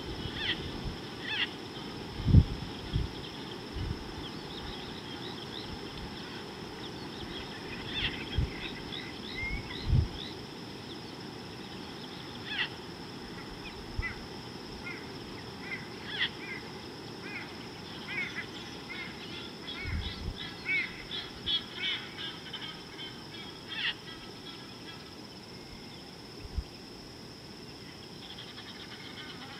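Wild birds chirping and calling in many short notes over a steady high-pitched insect drone, with a few brief low thumps. The loudest thump comes about two seconds in.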